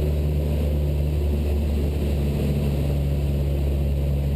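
Cessna 172 Skyhawk's piston engine and propeller droning steadily in cruise flight, a constant low hum heard from inside the cabin.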